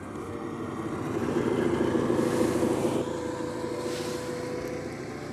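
Electric motor and gears of a radio-controlled scale crawler truck running as it drives, a buzzing whir that grows louder from about one second in and eases after about three seconds.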